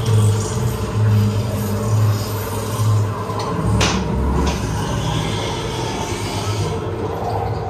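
Ghost train car running along its track: a rumbling, rubbing ride noise with a low beat roughly once a second for the first three seconds, and one sharp knock about four seconds in.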